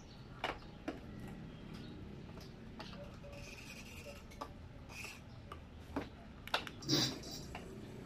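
Faint scattered clicks and handling noise from working the e-bike's ignition key and throttle grip, with a louder brief clatter about seven seconds in.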